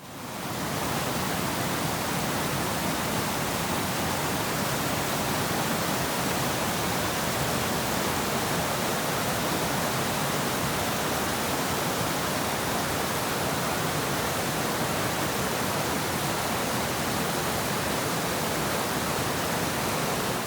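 Waterfall: a steady, full rush of falling water that fades in at the start and fades out at the end.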